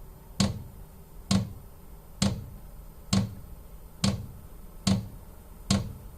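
Diesel heater fuel dosing pump ticking during start-up: a sharp click with a low thud about once a second, seven in a row, evenly spaced.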